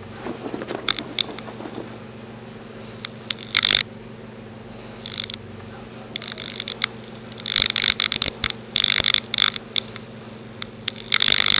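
A series of short scraping and rustling noises, about seven in all, over a steady low electrical hum; the longest and loudest comes near the end.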